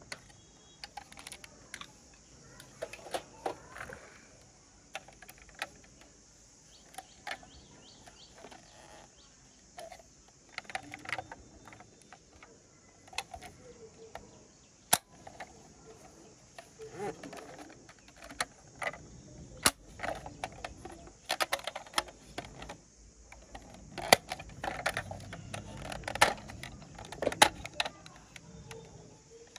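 Irregular clicks and light taps of toy model ambulances being handled in the fingers: small hinged doors being swung open and shut, and plastic and metal parts knocking together.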